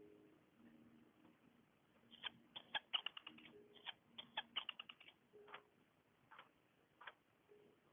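Faint small clicks and taps in quick clusters about two to five seconds in, then a few single ones, with a faint low hum coming and going.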